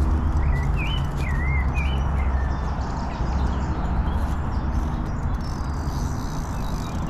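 Small birds chirping, a string of short warbling calls in the first couple of seconds, over a steady low rumble.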